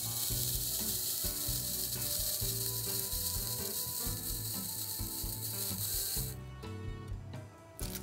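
Sparkler candle fizzing and crackling as it burns, a steady high hiss that stops suddenly about six seconds in. Soft background music plays underneath.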